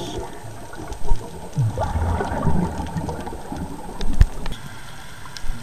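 Underwater sound of a scuba diver's regulator: irregular low bubbling rumbles of exhaled air, with a sharp click about four seconds in.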